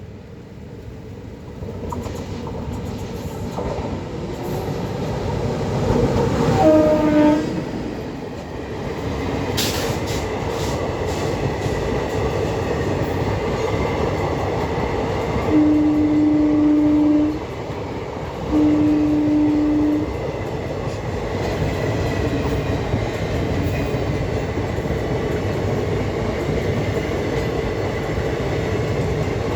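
An Indian Railways train running with a steady rumble and rattle of wheels on track, growing louder over the first few seconds. Its horn sounds one short blast about seven seconds in, then two longer one-note blasts of about two seconds each, around sixteen and nineteen seconds in.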